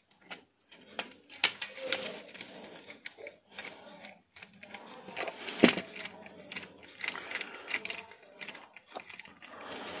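Hard plastic parts of a toy RC rock crawler's front axle and chassis clicking, knocking and rubbing as they are handled and pressed into place, with one sharper knock about halfway through.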